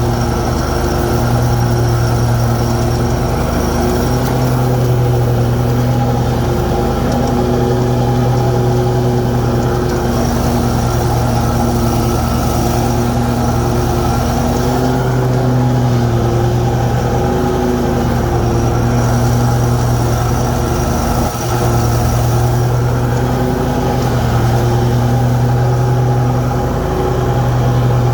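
Snapper Pro S150 zero-turn mower's Briggs & Stratton engine running steadily at raised throttle, with a slight wavering in pitch and a brief dip about 21 seconds in.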